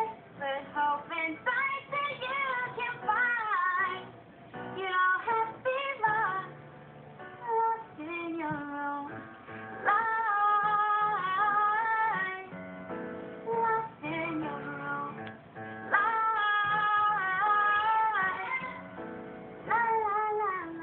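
A young woman singing a pop song solo over a light instrumental accompaniment, with several long held notes.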